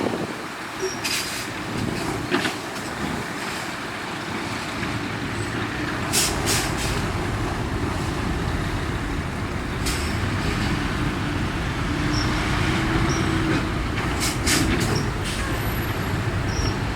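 Ten-wheel dump truck's engine running steadily, growing louder about five seconds in, with several short sharp hisses or clanks scattered through it.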